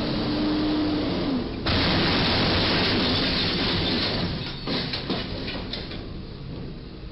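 Rental box truck's box top striking the bridge's crash beam: a sudden loud scraping rush of crushing metal about a second and a half in, lasting a few seconds, then a few sharp clanks and rattles before it dies down.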